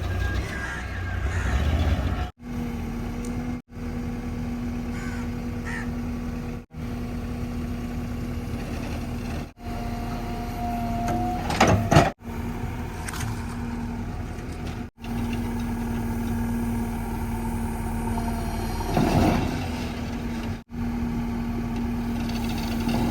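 JCB 3DX backhoe loader's diesel engine running steadily with a held hum, broken by several brief silent gaps. Louder bursts of noise rise over it about twelve seconds in and again near nineteen seconds.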